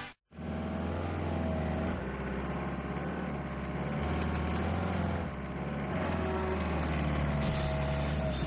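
Pickup truck engine running as the truck drives across rough grassy ground: a steady low rumble whose pitch wavers slightly.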